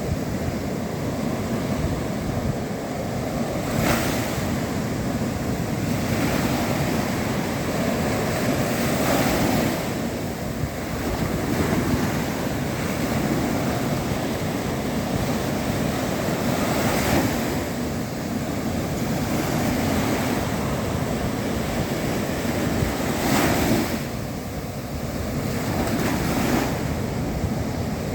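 Sea waves breaking on a shore: a continuous wash of surf that swells and ebbs, with four louder crashes as waves break.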